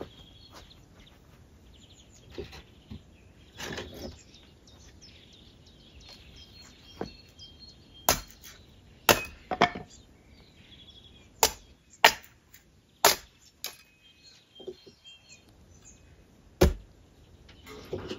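A hatchet chopping wood on a chopping block: a handful of sharp, separate strikes at uneven intervals, most of them in the second half.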